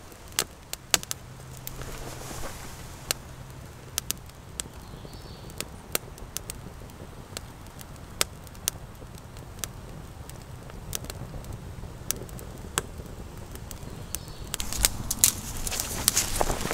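Campfire of dry sticks catching, with sharp pops and crackles about a second apart that come thicker and louder near the end as the flames take hold.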